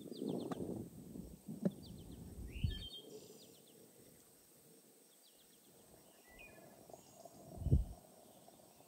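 Tea leaves tipped from a small wooden cup into a glass teapot with light knocks and rustling, then water running from a samovar tap into the teapot, with one dull thump near the end. Small birds chirp throughout.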